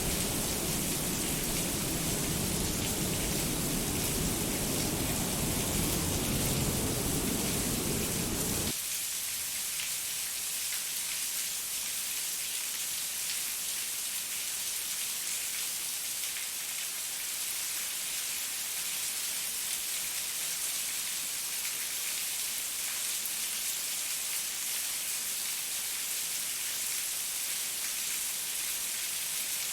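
Steady rain falling as an even hiss. For about the first nine seconds a deep low rumble runs under it, then cuts off suddenly, leaving only the lighter hiss of the rain.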